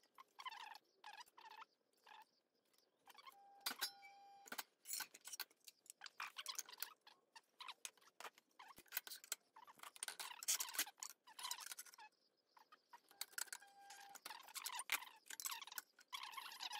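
Sheet aluminium being handled, slid and scraped against the steel beam of a Magnabend sheet-metal folder: an irregular series of scratchy strokes, with a couple of short metallic rings.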